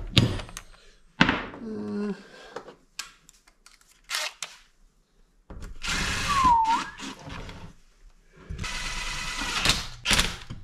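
Cordless drill/driver running bolts into a Honda Z50 engine's aluminium crankcase, in two short runs of the motor in the second half, one with a brief dip and rise in pitch. Before them come a few knocks and clicks of parts and the tool being handled.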